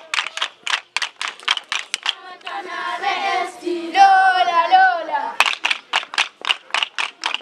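Wooden hand dumbbells clacked in a quick, even rhythm, about four to five strikes a second. The clacking breaks off about two seconds in while a group of voices sings a short chant, then starts again about three seconds later.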